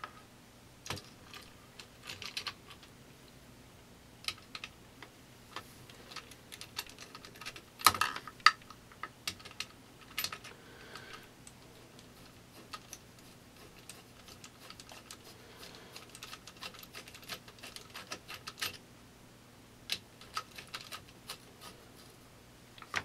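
Irregular light clicks and taps of metal and plastic parts and a tool being handled while the pistol grip's screw and nut are started on an AK-47 receiver, with a louder knock about eight seconds in.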